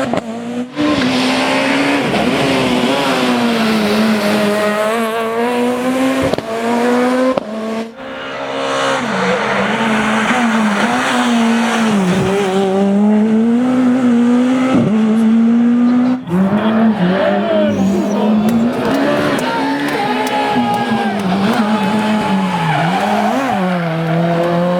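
Super 2000 rally cars' high-revving, naturally aspirated four-cylinder engines under hard driving on a stage, the pitch climbing and dropping with each gear change and lift. The sound breaks off and jumps to another car or stretch of road several times.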